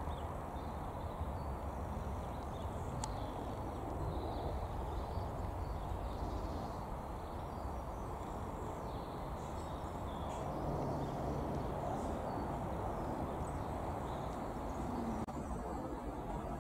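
Steady low drone of a Beech B200GT Super King Air's twin turboprops on final approach, with small birds chirping faintly now and then.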